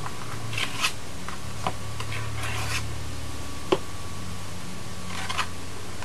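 A brush working glue and modeling paste onto a collage printing plate: a few short scratchy rubbing strokes and two small clicks, over a steady low hum from the tape.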